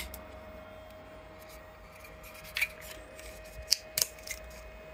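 3D-printed plastic cover pieces being pressed and snapped onto mounting brackets: a handful of sharp plastic clicks spread over a few seconds, over a faint steady tone.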